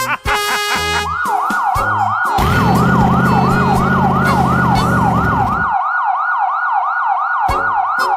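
Emergency vehicle siren in a fast yelp, the pitch rising and falling about three to four times a second, starting about a second in. A low steady hum, like an engine, runs under it for about three seconds in the middle.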